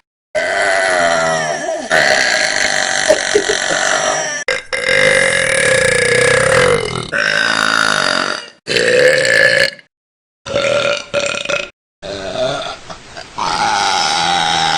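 A run of long, loud burps by girls and young women, one after another, each lasting one to three seconds with a wavering pitch, with sudden drops to silence between them where one clip cuts to the next.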